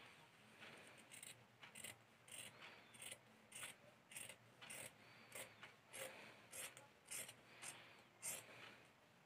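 Scissors cutting blouse fabric along a chalk line, a steady run of faint snips, about three every two seconds.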